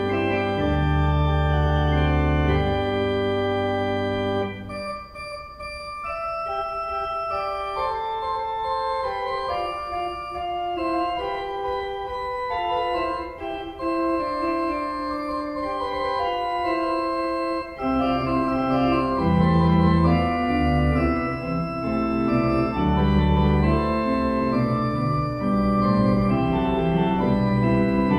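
Pipe organ playing slow, sustained chords. The deep bass notes drop out about four seconds in and come back around eighteen seconds.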